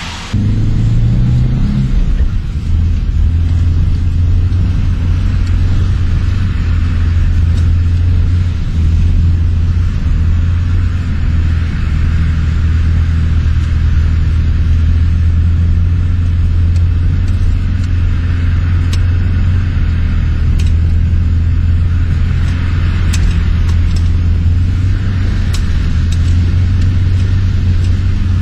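Steady low engine drone and road rumble heard inside a car's cabin, holding an even pitch throughout. A few faint clicks come in the second half.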